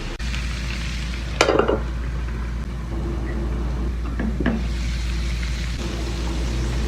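Chopped chicken liver, gizzard and heart sizzling steadily as they fry in a pan, stirred with a utensil that clatters against the pan about a second and a half in, and again more lightly about four seconds in.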